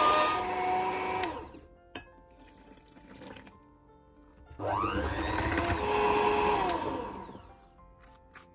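Philips Daily Collection electric hand mixer running in two short bursts. The first run winds down about a second and a half in. The second starts about four and a half seconds in, its pitch rising as the beaters spin up, and winds down again near the end.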